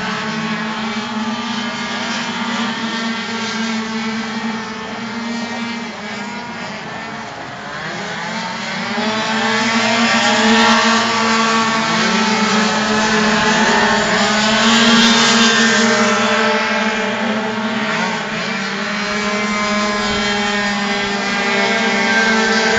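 Several tuned two-stroke racing scooters lapping a circuit, engine pitch rising and falling as they accelerate and slow for the corners over a steady drone. It gets louder from about eight seconds in as one rides close past, loudest for several seconds before easing back.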